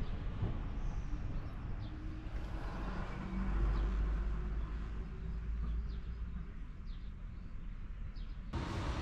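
Outdoor street ambience: a steady low rumble that swells for a couple of seconds around the middle, with faint bird chirps. Near the end it changes abruptly to a brighter rushing noise.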